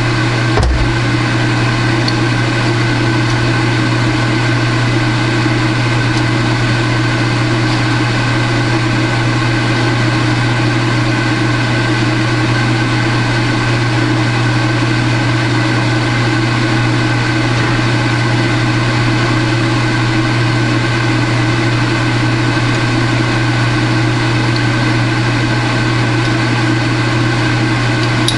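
A loud, steady machine hum that does not change, with a single knock less than a second in.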